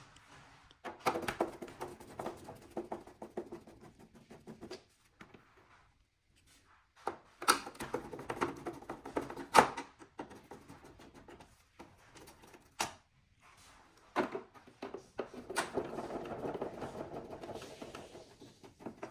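Irregular clicks, knocks and plastic rattles from screws being taken out of an air conditioner indoor unit and its plastic casing being handled, with short stretches of scraping or rattling.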